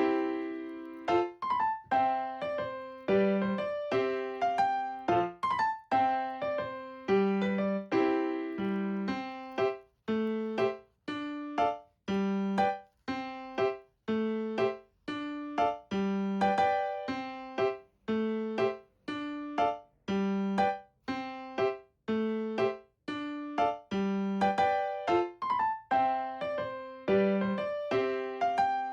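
Background music: a light keyboard tune of struck notes, each ringing and fading, at a bouncy steady pace.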